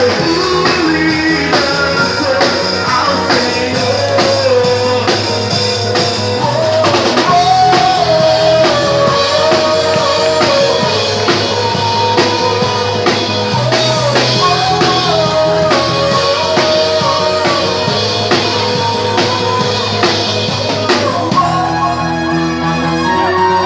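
A rock band playing a song: drum kit and guitars under a gliding lead melody line, with the arrangement shifting near the end.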